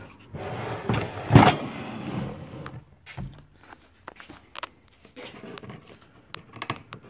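Handling noise: rustling and scraping with one heavy knock about a second and a half in, then scattered light clicks and taps.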